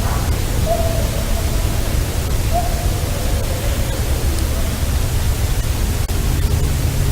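Two faint, drawn-out calls, each sagging slightly in pitch, heard a couple of seconds apart over a steady hiss and low rumble of wind and recorder noise.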